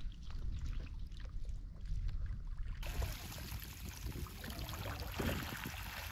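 Wet fine-mesh fishing net rustling as it is lifted and gathered by hand, with water trickling and dripping from it, over a steady low rumble. About three seconds in, the background changes abruptly to a brighter hiss.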